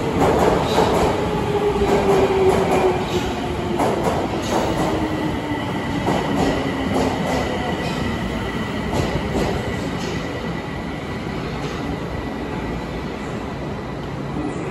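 Osaka Metro 30000 series six-car subway train running into an underground station. Its wheels clack over the rail joints while the motor whine falls slowly in pitch as the train slows. A thin, steady high tone runs through the second half.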